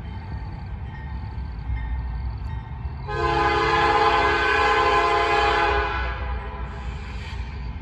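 Norfolk Southern AC44C6M diesel locomotive's P5 five-chime air horn sounding one long blast of about three seconds, a few seconds in, over a steady low rumble.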